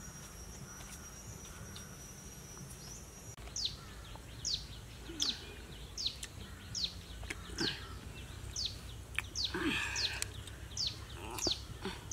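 A small bird repeating a short, high chirp that falls in pitch, roughly once every 0.7 s, starting a few seconds in, with a brief rustle near the end. Before the chirps begin, a steady high insect whine.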